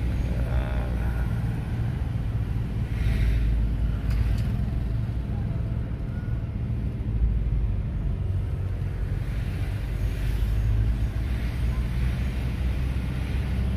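A vehicle engine running steadily, with a low, even rumble and road noise.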